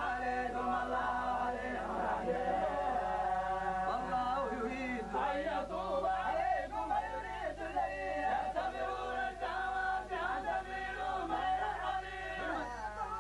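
A group of men chanting Quran verses together in long, drawn-out melodic lines, several voices overlapping and sustaining their notes.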